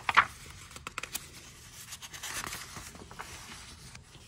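A page of a paperback picture book being turned by hand: a sharp paper swish right at the start, then softer rustling and small clicks as the page is laid flat.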